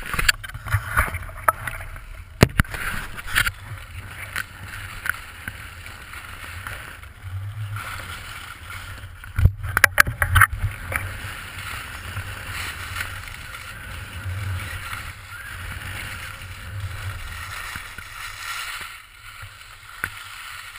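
Skis sliding and scraping over packed snow, with wind rumbling on the microphone of a pole-mounted action camera. A few sharp knocks from the camera pole being handled come near the start and again about halfway through.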